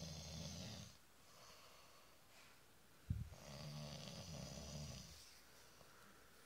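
A man snoring in his sleep. One snore fades out about a second in, and a second snore begins with a sharp snort about three seconds in and lasts about two seconds.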